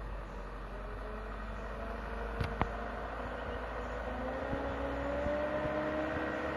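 Loaded sugarcane truck's engine pulling as the truck approaches, its note slowly rising in pitch and growing louder from about four seconds in. Two sharp clicks about halfway through.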